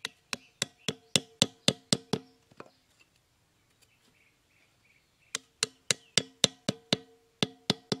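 Sharpened bamboo stakes being hammered into sandy ground with a small hatchet: two runs of sharp knocks, each with a short woody ring, about four a second. The first run lasts about two seconds; the second starts about five seconds in.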